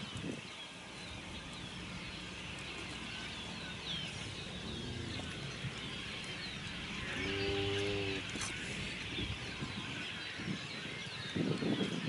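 Cattle lowing: a single moo lasting about a second, roughly seven seconds in. Faint bird chirps run underneath, and a short low rumble comes near the end.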